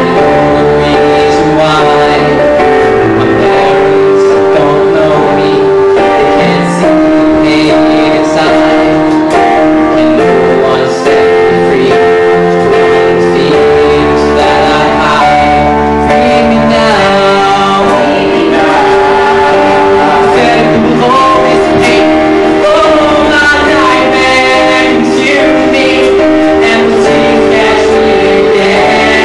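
A young man singing an original musical-theatre song into a handheld microphone over strummed guitar accompaniment.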